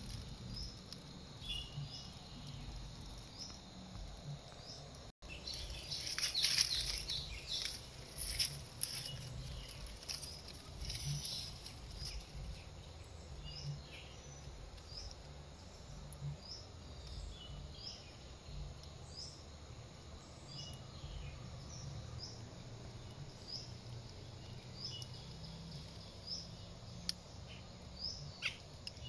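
Outdoor ambience of short, high chirping calls repeating every second or two, with bursts of rustling and crunching in dry leaves, loudest from about six to nine seconds in.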